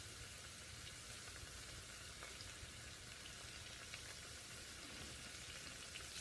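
Eggplant pieces deep-frying in oil in a small pot: a faint, steady sizzle with a few small crackles. The bubbling is the sign that water is still cooking out of the eggplant.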